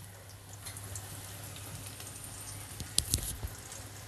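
Bread slices deep-frying in hot ghee: a low, steady sizzle with scattered crackles, and a short, sharper burst of sizzling and clicks about three seconds in as another slice goes into the oil.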